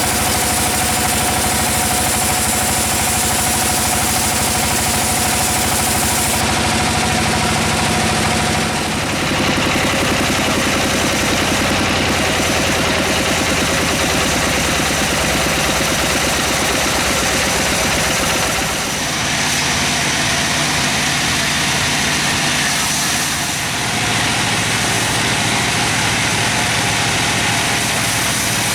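Engine-driven sawmill machinery running steadily, with a continuous mechanical drone. Its tone shifts several times as the load changes.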